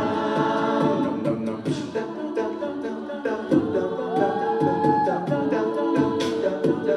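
Music: a live group performing a pop-rock song, voices holding wordless notes in harmony over a steady percussive beat.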